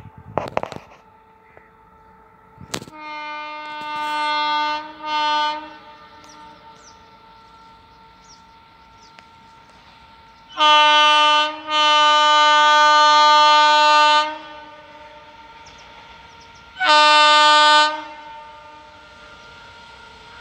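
Locomotive horn of an approaching Indian Railways train, sounded in five blasts. First comes a long blast that grows louder, then a short one; after a pause come a short blast and a long one, and a final short blast near the end. Two sharp knocks are heard near the start.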